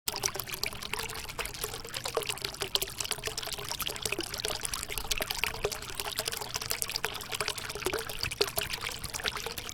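Water pouring and trickling steadily, with many small splashes and bubbling blips.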